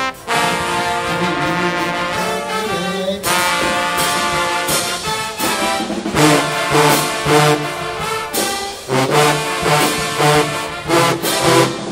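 Marching band brass section of trombones and sousaphones playing loud held chords. From about halfway through it plays short punched notes over a low pulse, roughly two a second.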